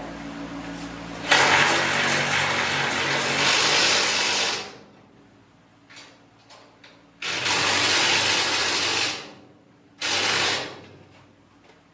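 A power tool running bolts down in three bursts: a long run of about three seconds, a second of about two seconds, then a short one near the end.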